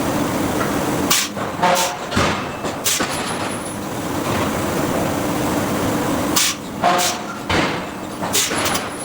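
Hydraulic forging hammer striking hot steel: sharp knocks in two irregular clusters, a few with a short metallic ring, over a steady machinery hum.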